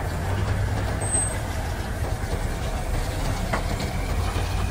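Grove TM1500 truck crane's diesel engine running steadily, a deep, even hum.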